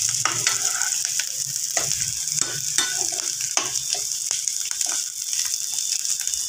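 Chopped onions, green chillies and coarsely crushed garlic sizzling in hot oil in a frying pan, with a steady hiss, while a spatula stirs them and scrapes and taps against the pan many times.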